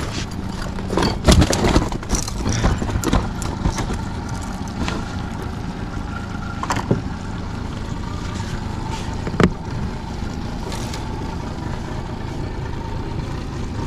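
Boat's Honda 30 hp four-stroke tiller outboard running steadily at trolling speed, with a few sharp knocks now and then.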